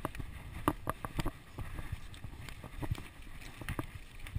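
Ellsworth Evolve mountain bike clattering over a rocky trail: irregular sharp knocks and rattles from the tyres and bike striking rocks, over a steady low rumble of tyre and wind noise.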